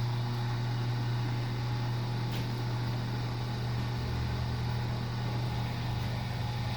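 Steady low mechanical hum of a machine running, with a constant low drone and no change in speed; a faint tick about two and a half seconds in.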